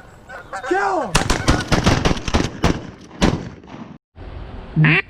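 Several shotguns firing in a rapid volley of about a dozen shots over two and a half seconds, preceded by quacking.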